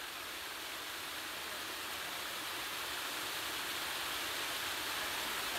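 Steady rush of flowing creek water, slowly growing louder.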